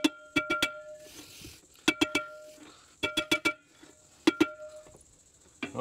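A hammer tapping the Nissan GQ Patrol's seized handbrake drum to free it: four quick runs of metal-on-metal strikes, each ringing briefly at the same clear pitches.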